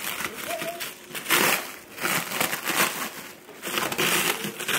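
Packing material crinkling and rustling as it is handled, in several separate bursts.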